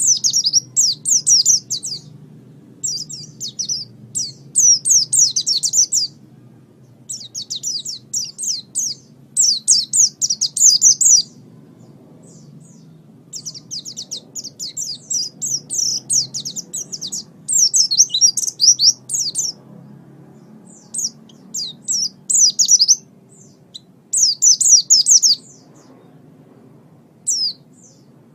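A small songbird singing rapid, high-pitched twittering phrases in bursts of one to two seconds, with short pauses between them. This is a lure/master recording, the kind played to caged songbirds to draw them into song and teach them.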